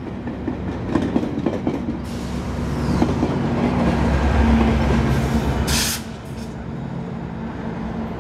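GO Transit commuter train passing close by. Wheels click over rail joints for the first couple of seconds, then a steady rumble with a diesel engine's drone swells louder midway. A short hiss comes about six seconds in, after which the sound drops back.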